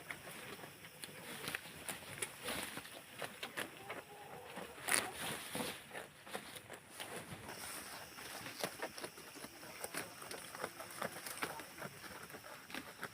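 Farmyard ambience: scattered clicks and rustles with a faint animal call about four seconds in.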